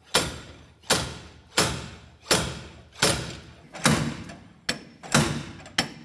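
Slide hammer blows, about nine sharp metallic strikes at a steady pace of roughly one every 0.7 seconds, each fading quickly. They are pulling a rear wheel hub and bearing assembly off the car.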